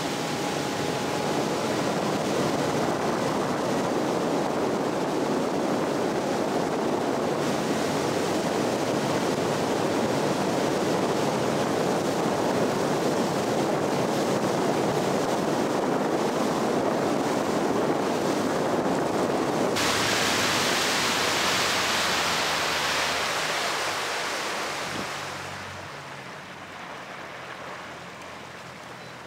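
Wind on the microphone and rushing water from a small aluminium fishing boat running fast under outboard power, a loud steady rush. About 25 seconds in the noise falls away as the boat slows down.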